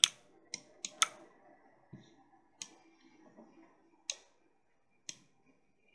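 Computer mouse and keyboard clicks: about seven short, sharp clicks at uneven intervals.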